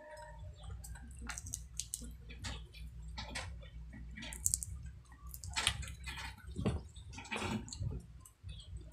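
Close-miked chewing of crispy fried chicken skin: wet mouth sounds broken by sharp crackles and crunches, stronger for a couple of seconds past the middle, over a low steady hum.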